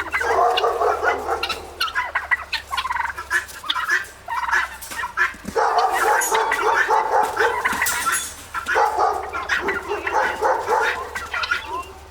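Flock of guinea fowl calling: a dense, rapid chatter of harsh, repeated calls that eases briefly about four seconds in and again near nine seconds.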